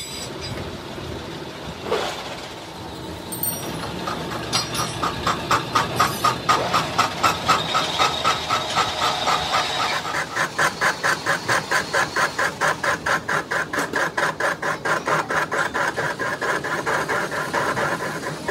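Factory machinery running with an even mechanical pulsing, about three beats a second, quickening to about four a second partway through.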